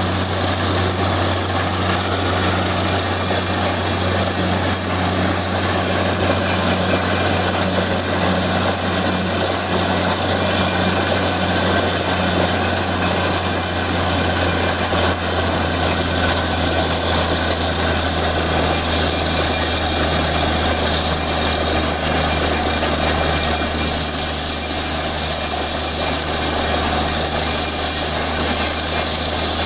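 Borewell drilling rig running steadily: a constant engine hum under a strong hiss of air. The hiss grows stronger near the end.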